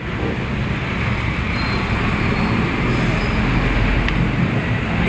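Steady road traffic noise, even and continuous.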